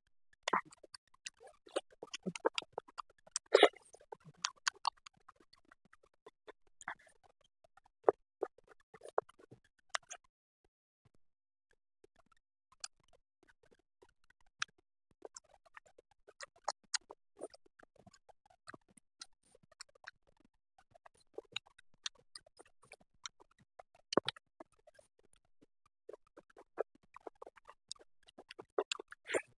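Close-miked eating sounds: chewing with wet mouth clicks and smacks, and fingers working biryani rice on a plate, as scattered short clicks with a brief lull about ten seconds in.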